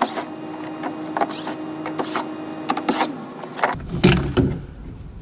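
Power screwdriver whirring steadily as it backs out the screws holding a factory 6x8 door speaker, with clicks, stopping about three seconds in. Plastic knocks and handling follow as the speaker is pulled free of the door.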